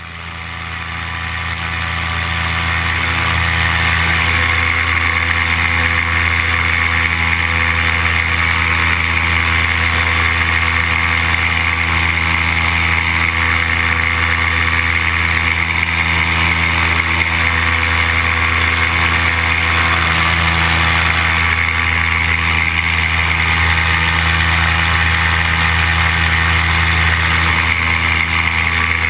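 Paramotor engine and propeller running steadily at cruise power, heard up close from the pilot's own rig as a constant drone. It fades up over the first few seconds.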